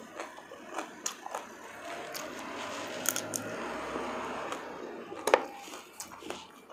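Close-miked eating sounds of shrimp being peeled and chewed: small wet clicks and smacks, a steadier stretch of chewing in the middle, and one sharp click a little after five seconds in.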